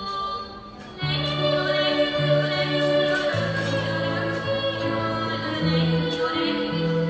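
Children's choir singing with instrumental accompaniment. The music comes in loudly about a second in, with held bass notes that change every second or so under the voices.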